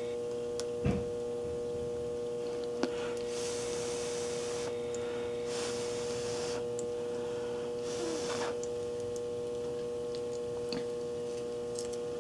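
A steady high-pitched hum runs throughout. Over it come light handling sounds: a soft knock about a second in, a sharp click near three seconds, and three brief hissing rustles in the middle.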